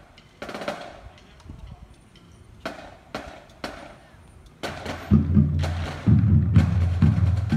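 Drum-led music: sharp drum strikes with gaps between them, joined about five seconds in by loud, low sustained notes.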